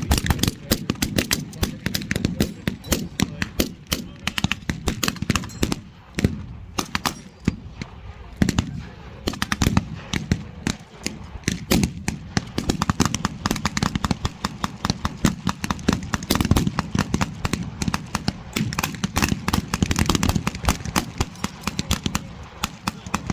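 Small-arms fire firing blanks in a WWII battle reenactment: a steady stream of rifle shots and machine-gun bursts, many shots a second, overlapping throughout.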